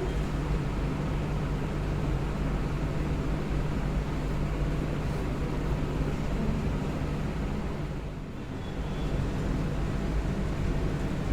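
Steady low droning hum with hiss from a running machine, dipping briefly about eight seconds in.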